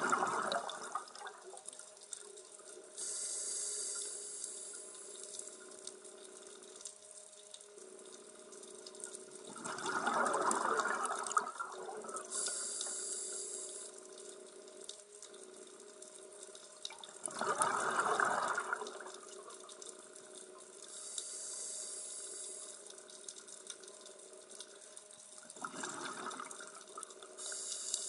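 Scuba diver breathing through a demand regulator underwater: a high hiss with each inhalation alternating with a louder rush of exhaled bubbles, four breaths about eight seconds apart.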